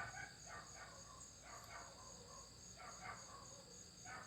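Near silence, with crickets chirping faintly in the background: a steady, high pulsing trill.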